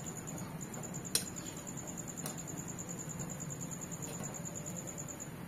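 Metal spoon clinking against a pan while stirring and turning shengole dumplings in boiling curry. There are three light clinks, the loudest about a second in, over a steady low background.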